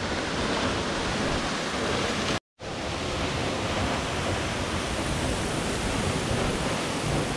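Tall single-drop waterfall plunging into a rock pool: a steady, dense rush of falling water. It cuts out for a moment about two and a half seconds in, then resumes.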